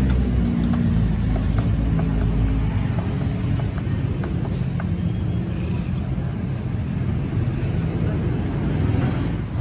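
Light taps of a thin wooden stick on a durian's spiky husk, about two or three a second for the first half and sparser after, the way sellers sound out a durian for ripeness. Under them runs a steady low engine rumble.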